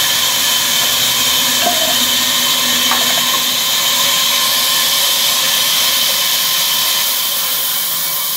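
Large vertical band saw running and ripping lengthwise through a timber slab: a loud, steady, high hiss with a few faint steady tones beneath it.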